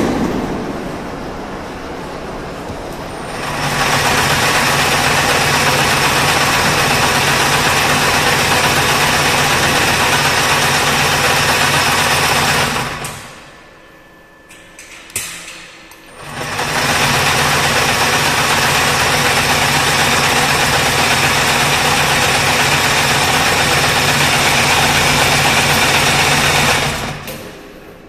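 Henghui high-speed wire harness braiding machine running with a steady mechanical noise and a low hum. It starts softly, comes up to full speed a few seconds in, and runs down and stops about halfway. After a single click it starts up again, runs steadily, and stops shortly before the end.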